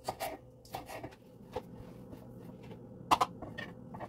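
Kitchen knife slicing green beans on a wooden cutting board: several scattered knife knocks in the first second and a half, then a louder double knock about three seconds in.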